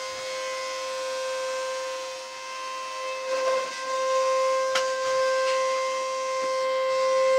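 Vacuum cleaner running with a steady, high whine that grows louder in the second half, as the wand is pushed toward the cat. There is a sharp knock a little under five seconds in.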